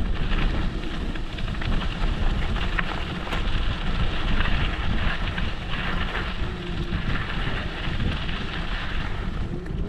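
Wind buffeting a handlebar-mounted action camera's microphone, over steady low rumble from a moving e-scooter's tyres and ride.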